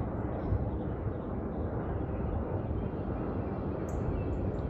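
Jet aircraft flying high overhead: a steady low rumble. A few short high chirps come near the end.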